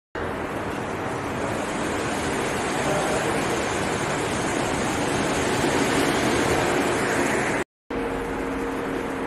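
Steady rushing background noise of an indoor hall, without speech, swelling slightly in the middle and dropping out for an instant about three quarters of the way through.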